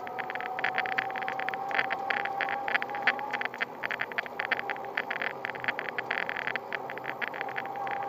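Ride noise from an electric bicycle rolling over brick paving: dense, irregular rattling and clicking over a steady, slightly wavering whine. The uploader says the bike's motor is almost silent, so the whine is not the hub motor itself.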